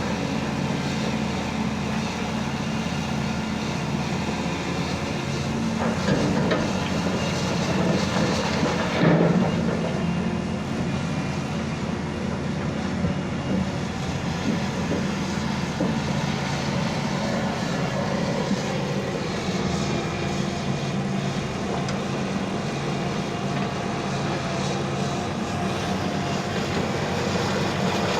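Diesel engine of a JCB excavator running steadily, with brief louder surges about six and nine seconds in.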